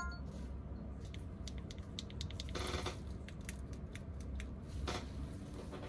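An iPhone ringtone preview cuts off right at the start, followed by scattered light clicks and taps of gloved fingers tapping and handling the phone, with two short rustling bursts, over a low steady hum.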